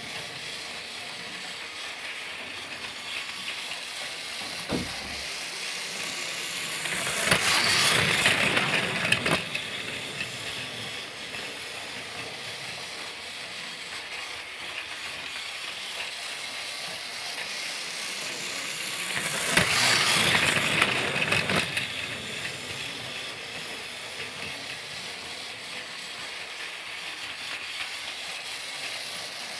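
Motorized Thomas toy train running on its track, a steady mechanical whirring rattle that swells louder twice, about twelve seconds apart.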